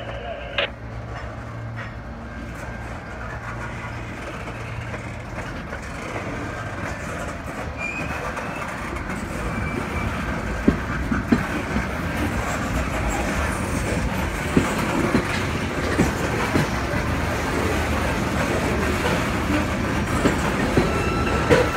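Freight cars rolling slowly past on jointed track: a steady rumble that grows louder as the cars come closer, with wheels clicking and knocking over the rail joints, the knocks sharper and more frequent from about ten seconds in.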